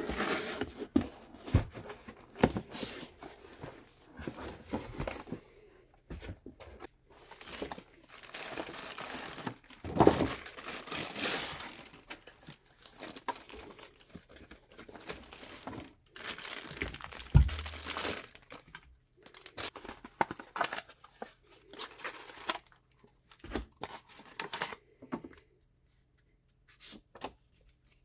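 PC component packaging being handled and opened: irregular crinkling and tearing with a few sharp knocks, and a dull thud about seventeen seconds in. The handling thins out to brief rustles near the end.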